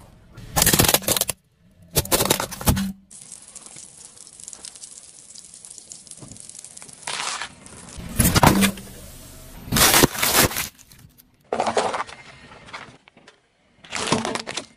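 Car tyre crushing objects on asphalt, among them plastic packaging and a drink bottle: about six separate loud crunching, crackling bursts, with a quieter stretch of a few seconds after the second one.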